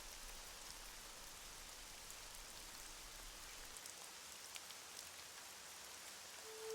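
Faint, steady rain with a few light drop ticks. Just before the end, a held musical note begins.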